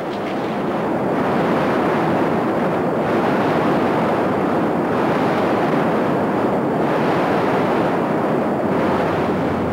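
Loud, steady rush of river whitewater pouring over rocks and a causeway, fading in over about the first second.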